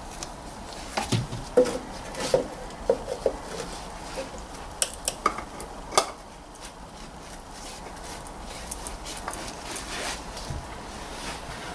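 Irregular clinks and knocks as a new spin-on oil filter and a gloved hand bump against metal and plastic parts under the car while the filter is worked into place on its housing. Fainter rustling and ticking follow near the end.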